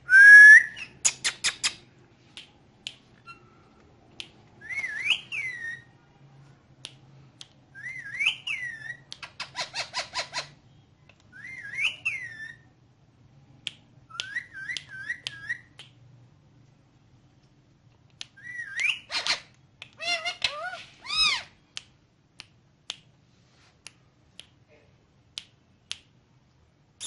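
Ringneck parrot whistling and chattering: short rising-and-falling whistled notes every few seconds, once three in quick succession, with bursts of rapid clicking between them.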